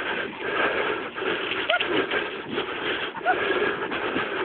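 Dog scooter rolling along a dirt path behind a running team of huskies, a steady rough rolling noise, with two brief high squeaks, one about a second and a half in and one just after three seconds.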